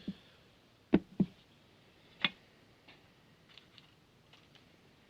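Sharp clicks and taps of small parts and tools being handled on a workbench: two loud clicks close together about a second in, another a second later, then a few faint ticks.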